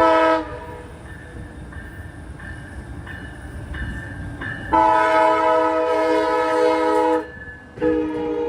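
Amtrak Pacific Surfliner locomotive horn sounding as the train approaches the station: a short blast, a long blast about five seconds in, and another starting near the end, each a loud chord of several tones. Between the blasts the rumble of the oncoming train grows.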